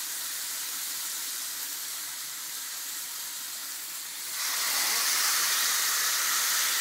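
Seasoned chicken pieces sizzling in hot olive oil and butter, a steady hiss that gets louder about four seconds in.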